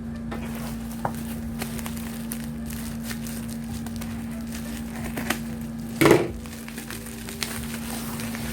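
A parcel being cut open with scissors: scattered snips, clicks and crinkling of packaging, with one louder noise about six seconds in, over a steady low hum.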